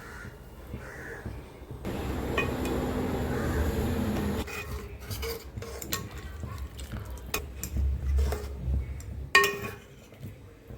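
Metal spoon working in a cooking pot: a few seconds of continuous scraping and stirring, then several sharp metal clinks, the loudest about nine seconds in.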